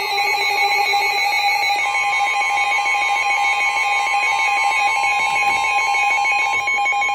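Emergency Alert System attention signal: a loud, steady two-tone electronic alert tone held without a break.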